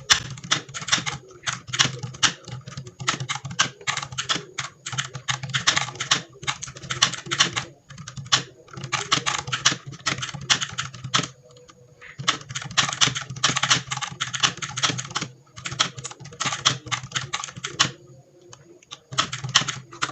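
Fast typing on a DA Meca 6 Plus mechanical keyboard partly fitted with Outemu silent switches: dense runs of rapid keystrokes broken by a few short pauses.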